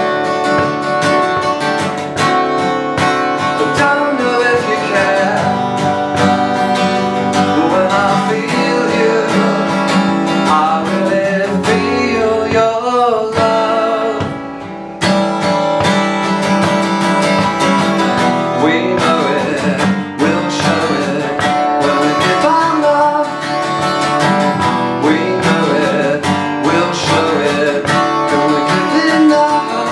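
A man singing to his own strummed acoustic guitar. About halfway through the playing fades for a moment, then comes back in sharply.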